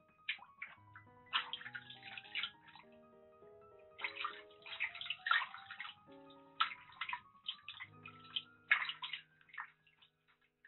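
Water sloshing and splashing in a small basin around a kitten being held and bathed, in irregular bursts. Gentle background music with slow, stepping notes plays underneath.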